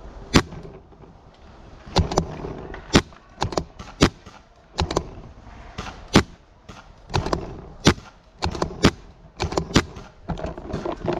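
Paintball markers firing during a firefight: about twenty sharp pops at irregular intervals, some in quick pairs.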